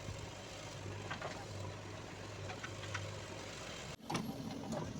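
Diesel engine of a JCB 3DX backhoe loader idling steadily, with a few faint ticks. The sound cuts off abruptly about four seconds in, and a similar but higher running hum follows.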